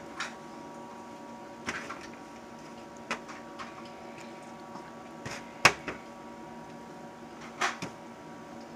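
A handful of short knocks and clatters as chicken drumsticks are set into a pan, the loudest a little over halfway through, over a steady background hum.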